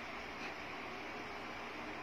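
Steady low hiss of background noise, with no distinct events: microphone and room noise.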